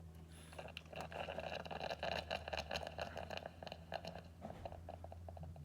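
KRUPS espresso machine running a brew cycle: a steady low pump hum with dense crackling and sputtering of water and steam from about half a second in, thinning out near the end.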